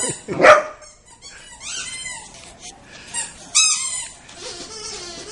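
A dog barking once, sharply, then giving high-pitched whines and yips, twice more.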